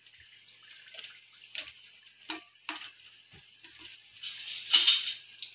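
Samosas deep-frying in hot oil on a low flame: a steady, gentle sizzle. A metal slotted spoon knocks against the pan a few times, and the sizzle swells louder for a moment near the end.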